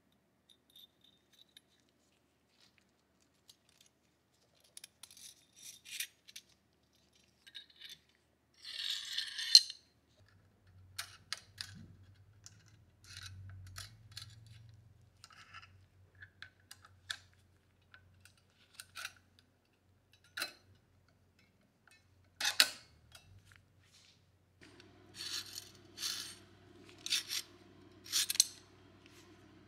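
Steel parts of a Mauser C96 pistol being handled and fitted together during reassembly: scattered small metallic clicks, scrapes and slides. A faint low hum runs through the second half.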